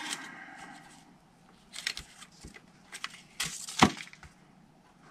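Faint crackling and a few small clicks from a roll of glue dots being handled, its plastic backing strip pulled and flexed as dots are taken off, with the sharpest click just before four seconds in.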